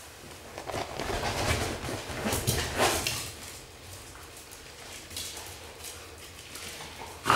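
Two small dogs making excited noises as they jump up and greet someone: irregular yelps and whines mixed with scuffling, busiest in the first three seconds. One short, sharp sound right at the end is the loudest.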